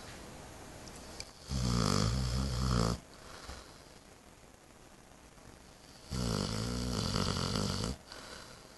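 Eight-month-old Saint Bernard snoring in deep sleep: two long, low snores about four and a half seconds apart, each lasting about a second and a half.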